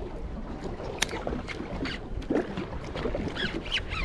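Wind and water noise around a small boat drifting while fishing, with one sharp click about a second in and a few high, wavering calls starting near the end.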